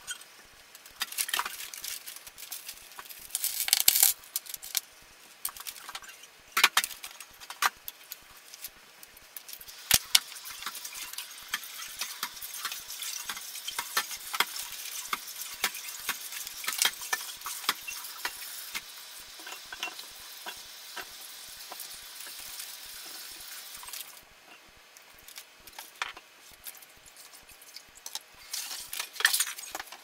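Hands unpacking CPU-cooler hardware: small metal mounting brackets and screws clinking and clicking on a desk, with paper and plastic packaging rustling. There are sharper handling bursts in the first ten seconds and a steadier rustle through the middle.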